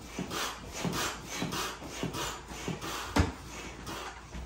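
Hand stand-up pump inflating an inflatable paddle board: a rasping rush of air on each stroke, about two a second. A sharper thump about three seconds in.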